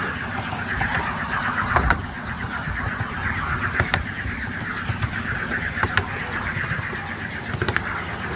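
Miniature railway train running along 7¼-inch gauge track: a steady rumble of wheels on the rails, with a sharp click about every two seconds as the wheels pass over rail joints.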